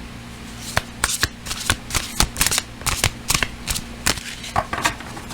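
A deck of tarot cards being shuffled by hand: a run of sharp, irregular card snaps and slaps.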